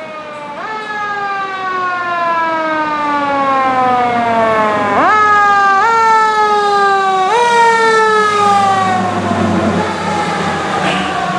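Fire truck siren sounding as the truck approaches and passes. It rises, then winds down slowly over about four seconds. Next come three quick rises about a second apart, each sliding back down, then another long wind-down.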